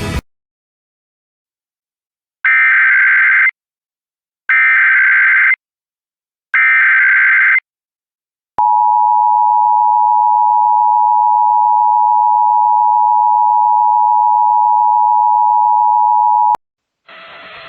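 Emergency Alert System tones: three one-second bursts of SAME header data, the buzzy digital chirp, a second apart, then the two-tone EAS attention signal held steady for about eight seconds before cutting off sharply. A hiss comes in near the end.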